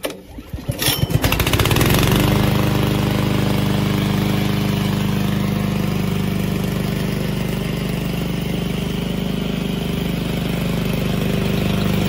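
Loncin 224cc single-cylinder four-stroke petrol engine pull-started with its recoil cord. It catches within about a second and a half, then runs steadily.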